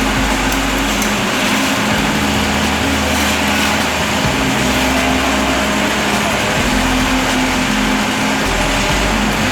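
An engine running steadily with a constant hum and a dense, noisy roar, its pitch wavering slightly now and then.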